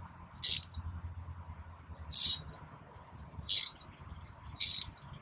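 Ratcheting tap handle racheting back four times, about every second and a half, while a tap cuts threads by hand into the jet pump bowl. Each ratchet is a short rasp.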